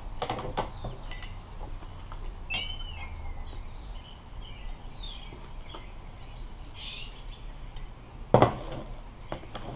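Spoons clinking and tapping against mugs and a plastic container as sugar is scooped, with a few birds chirping in the background. A single louder knock comes about eight seconds in.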